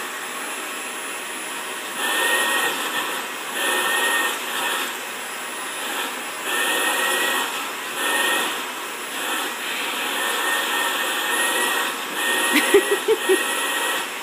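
Vacuum cleaner running with its nozzle passed over a cat's fur, the suction sound swelling and easing every second or two. A few brief pitched sounds break in about twelve and a half seconds in.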